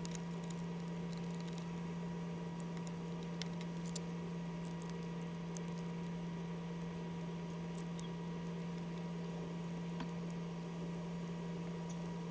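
Steady low electrical hum, with faint scattered clicks of a small screwdriver and tiny screws being worked into a partly reassembled camera body.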